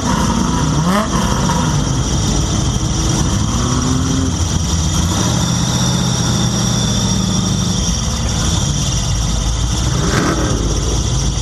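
Off-road vehicle's engine revving up and down, holding steadier in the middle and picking up again near the end. A steady high squeal from its squeaky drive belt runs throughout.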